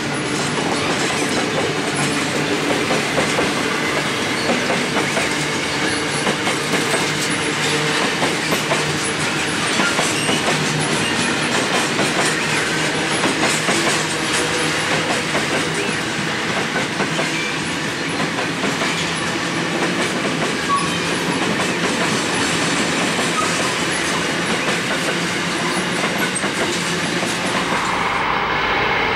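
A long train of grain hopper wagons rolling past, its wheels clattering over the rails with steady rapid clicking. The sound changes abruptly near the end.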